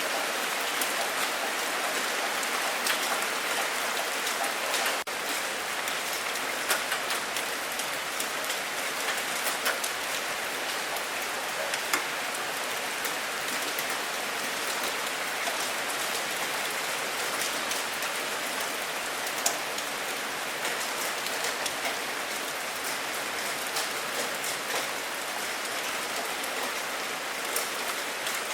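Steady rain falling: an even hiss full of small drop ticks, with a few louder single drop hits now and then.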